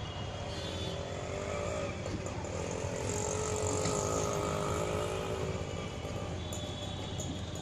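Railway station din: a steady low rumble with a pitched engine-like hum that wavers up and down in pitch over the first five seconds.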